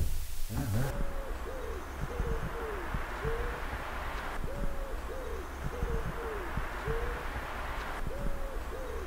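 Owl-like hooting: short soft hoots, each rising and falling in pitch, repeating about twice a second over a steady low background rumble.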